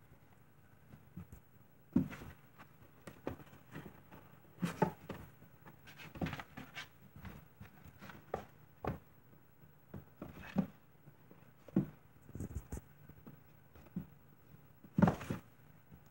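Kittens scuffling in and on a cardboard box: irregular taps, scratches and scuffs of paws and bodies against the cardboard, with louder thumps about two seconds in and near the end.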